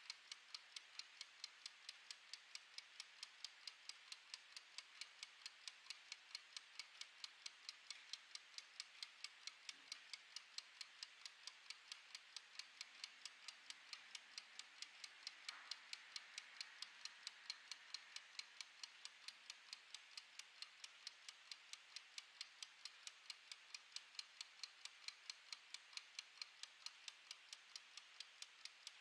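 Mechanical wind-up kitchen timer ticking: its clockwork escapement gives a fast, even, faint tick several times a second as it counts down.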